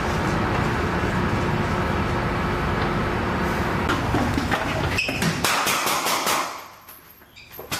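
Steady machinery noise, a loud even rush with a low hum, as in a ship's interior passageway. A few sharp knocks and clicks come around four to six seconds in, and the noise fades out near the end.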